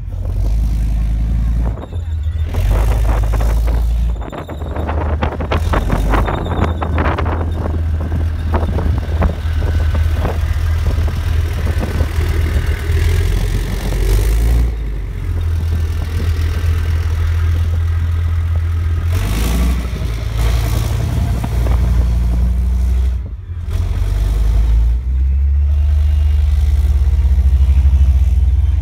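Leopard 1 tank and other tracked armoured vehicles driving close by over sand: loud, deep diesel engine rumble, with a stretch of rattling track clatter a few seconds in.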